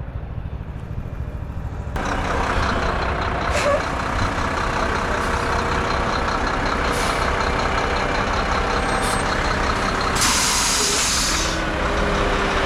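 Heavy diesel truck, likely the ready-mix concrete truck, running steadily; it gets louder about two seconds in. About ten seconds in, the air brakes give a hiss lasting a second or so.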